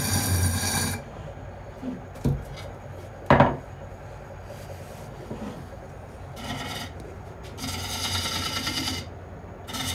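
Steel turning tools cutting a spinning dry-wood cup on a lathe, a rasping shaving cut. The first cut lasts about a second. Two knocks follow, the louder one about three and a half seconds in, as one tool is put down and a hook tool taken up. Cutting with the hook tool resumes in bursts from about six and a half seconds.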